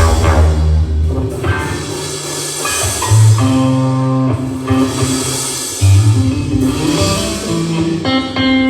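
Band playing without vocals: drum kit, bass and guitar, with held bass notes that change about once a second.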